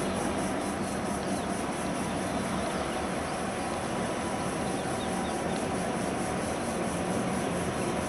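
Distant diesel locomotives running steadily as they approach the rail bridge, a continuous low engine drone, with faint bird chirps.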